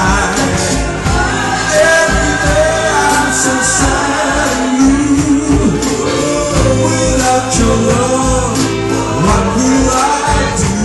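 Male singers performing a slow ballad live into a microphone over instrumental accompaniment, with other voices joining in.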